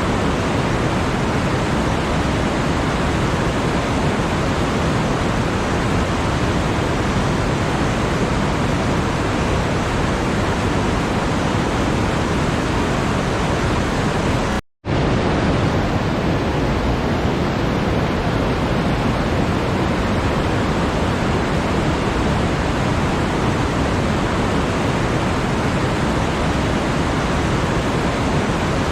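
Steady, even rushing noise with no rhythm or pitch, like pink noise or falling water, cut by a brief total dropout about halfway through.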